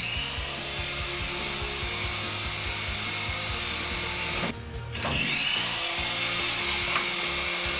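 Syma S107G toy helicopter in flight: its small electric motors drive the coaxial rotors in a steady whirring buzz. The sound drops out briefly about four and a half seconds in, then carries on unchanged.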